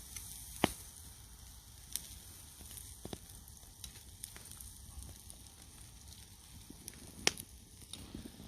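Campfire burning with a steady soft hiss and a few sharp crackling pops, the loudest under a second in and about seven seconds in.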